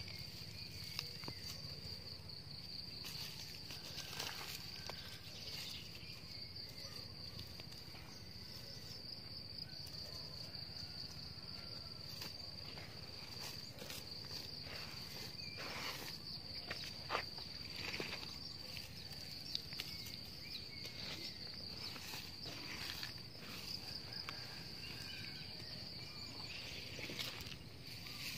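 An insect trills steadily at a high pitch throughout. Over it come scattered short scrapes and rustles of hands working through dry, crumbly soil.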